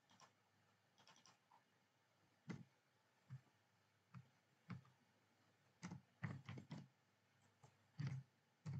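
Faint, scattered clicks and keystrokes of a computer keyboard and mouse: single taps spaced apart, with a quicker run of several about six seconds in.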